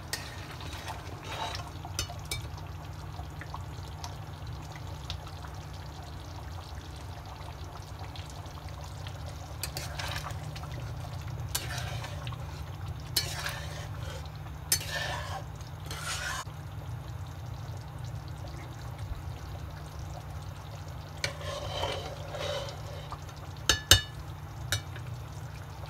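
Cream poured into simmering butter chicken gravy in a metal pan and stirred in with a metal spatula: wet stirring and scraping in several short stretches, with a few sharp clinks of the spatula on the pan near the end, over a steady low hum.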